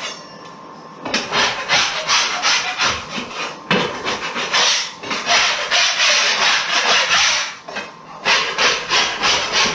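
Metal drywall knife scraping along the seam of a drywall patch in short, rough strokes, with one longer scrape midway. It is clearing loose paper and debris from the joint before it is filled with mud.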